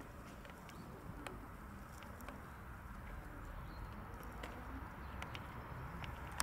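Faint outdoor ambience: a steady low rumble with scattered light clicks.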